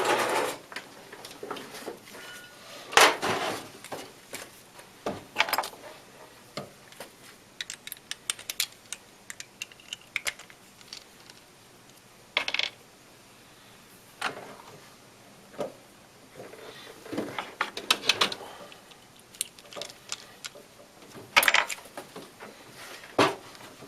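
Scattered clicks, clinks and short rattles of small metal tools and parts being handled on a jeweler's bench, with no motor running.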